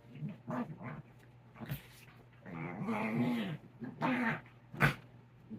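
Miniature dachshund making several short, low whining and grumbling calls, the longest about halfway through, with a sharp click near the end.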